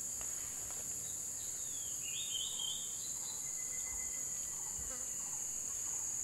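Steady high-pitched drone of insects, with a short run of bird chirps about two seconds in.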